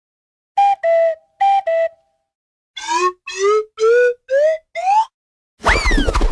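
A run of cartoon whistle sound effects. First comes a two-note falling figure played twice. Then come five short rising whistle slides, each starting a little higher than the last. Near the end there is a loud crash with a falling whistle tone.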